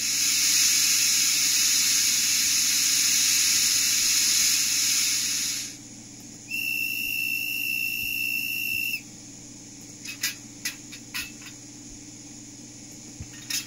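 Recorded steam-locomotive sounds from an ESU LokSound V4.0 sound decoder fitted to a Fleischmann BR23 N-scale model. A loud hiss of steam for about six seconds, then a steady steam whistle held for about two and a half seconds, then a few short sharp ticks.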